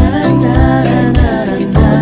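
Background music: a song with a wavering sung voice over steady low notes and a regular bass beat.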